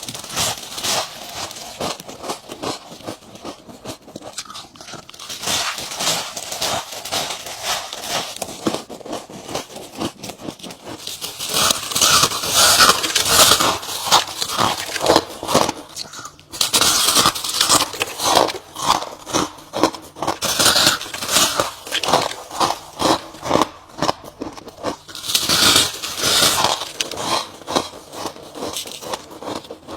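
Ice being bitten and crunched between the teeth: a rapid, continuous run of crisp cracking crunches. It gets louder about a third of the way in, with a brief break near the middle.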